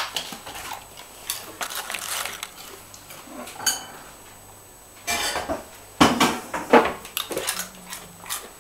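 A dog chewing crinkle-cut potato chips: crisp crunching and cracking in irregular bursts, loudest around six to seven seconds in.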